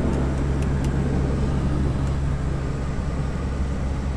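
Convair 580's twin Allison turboprop engines and propellers running steadily on the landing approach, heard in the cockpit as a low, even drone with steady propeller tones.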